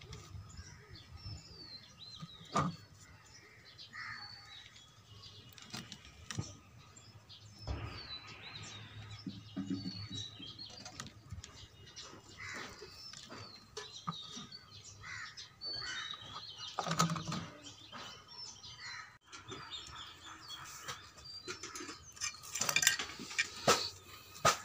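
Small birds chirping on and off, short high twitters, with scattered knocks and handling noises from hands working a plant and its soil. A run of sharp clicks and scrapes comes near the end.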